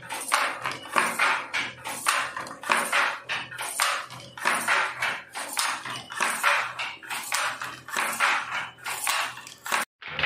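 Wooden fly-shuttle handloom weaving at a steady pace: a rhythmic clacking, two to three strokes a second, as the shuttle is thrown across and the batten beats in the weft. It stops abruptly near the end.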